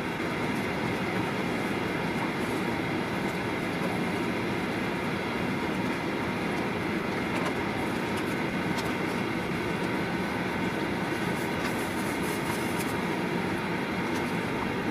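Steady mechanical hum and rumble of a parked airliner heard from inside the cabin, with a few faint clicks in the second half.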